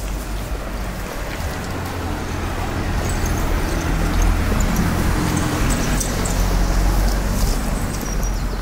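A motor vehicle passing close by on the street: engine and tyre noise that grows louder, holds for a few seconds, then fades.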